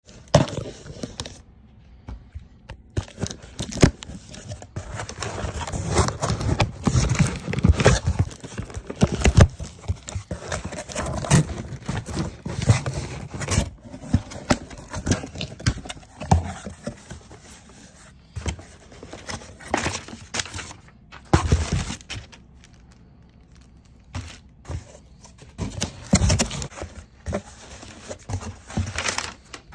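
Packing tape on a cardboard shipping box being slit open with a thin tool, then cardboard flaps scraping and being pulled back. The handling gives irregular scratches and clicks, with a couple of quieter pauses.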